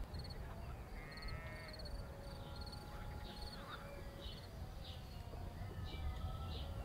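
Countryside nature ambience: insects chirping in short, regular high-pitched trills, with scattered bird calls and a harsh call about a second in, over a low rumble of wind.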